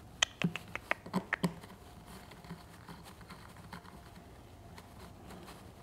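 Small hex key clicking and scraping in a button head screw as the screw is turned down through an acrylic piece into a 3D-printed plastic dust boot. A run of light clicks in the first second and a half, then only faint handling ticks.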